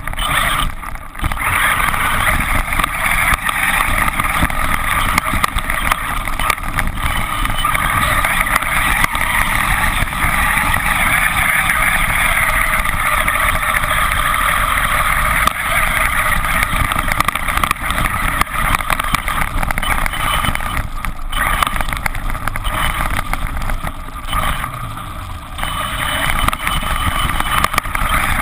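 Traxxas E-Revo electric RC monster truck driving hard through snow, heard from a camera riding on the truck: steady electric motor and drivetrain noise mixed with the hiss of snow churned up by the tyres, easing off briefly three times.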